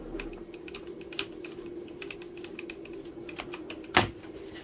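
Light clicking and rattling as a screwdriver tightens a screw in a Black & Decker angle grinder's plastic housing, the tool being handled on a workbench. One sharp knock about four seconds in as the grinder is set down on the bench.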